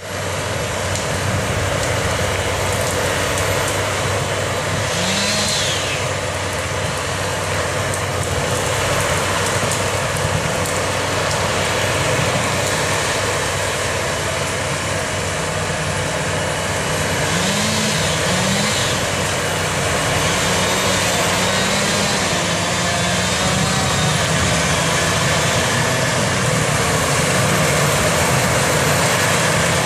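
New Holland tractor running steadily under load, driving an AHWI mulcher/tiller that grinds through brush and soil while reclaiming overgrown land. The pitch swings up and back briefly about five seconds in and again around eighteen seconds.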